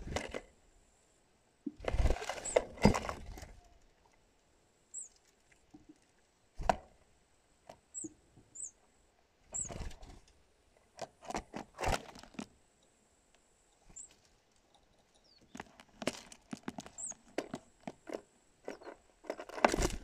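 A bird's feet and wings close to the microphone as it lands and moves about on a drinking glass and plastic tub: irregular clusters of scratches, taps and flutters. A few short, high chirps sound faintly in between.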